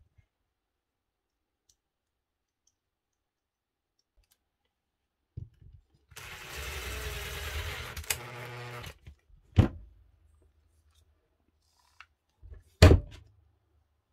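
Cordless impact driver running a screw into the drill's plastic housing: a steady motor whine for about three seconds starting some six seconds in, then two short, sharp knocks a few seconds apart.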